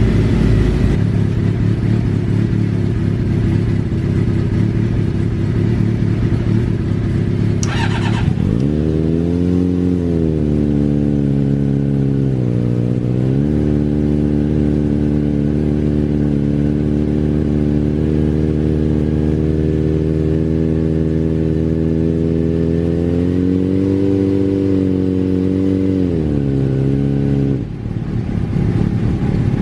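Kawasaki ZRX400 inline-four motorcycle engine running. It idles at first, then about eight seconds in the revs rise and are held steady at a higher speed, with one brief dip. Near the end it drops back to idle.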